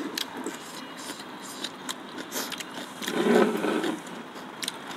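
Metal spoon clinking and scraping against a glass bowl, in scattered light clicks. A little after three seconds in there is a brief, louder voiced murmur.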